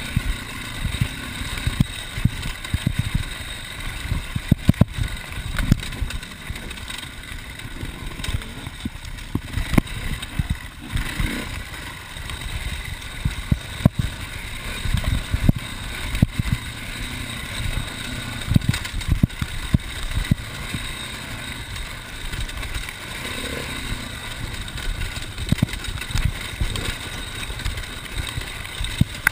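Enduro motorcycle engine running as the bike is ridden over a bumpy dirt track, with many irregular knocks and thumps from the rough ground.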